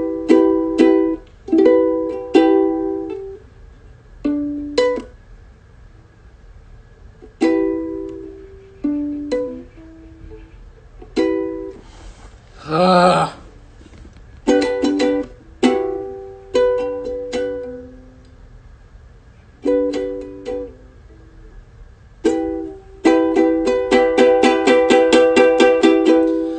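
Ukulele strummed in short stop-start bursts of chords with pauses between, as someone works out a song's chords by trial. A brief vocal sound comes about halfway through, and near the end the strumming settles into a steady run of quick strokes.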